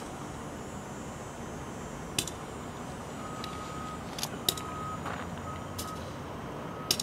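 Front-end loader's backup alarm beeping as it reverses, a single pitch in a few long beeps starting about three seconds in, over a steady distant rumble of machinery. A few sharp clicks stand out above it.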